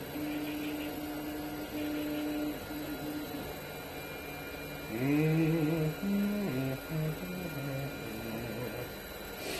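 3D printers running: a steady hum with motor tones that shift in pitch in steps. About halfway through, a louder run of pitched notes rises and falls for some three seconds.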